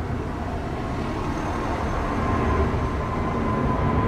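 Jet airliner's engines climbing out after takeoff, a steady rumble growing louder as it approaches, with a thin steady whine coming in about a second in.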